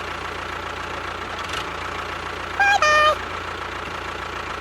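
An engine runs steadily at idle with a fast, even pulse. About halfway through, a short two-note horn-like beep drops in pitch and is louder than the engine.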